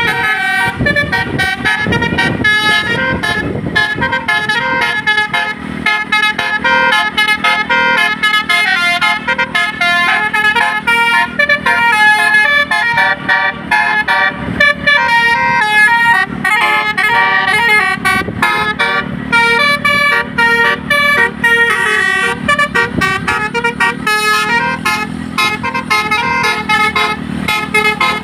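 Indonesian tour bus's basuri (telolet) musical air horn playing a fast-stepping melody of many short notes, with a low rumble under it for the first few seconds.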